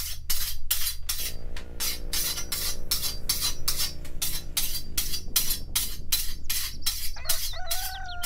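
Machete blade being worked, metal strokes in a steady rhythm of about three to four a second. A steady low pitched tone sounds through the middle, and a higher tone slowly falls near the end.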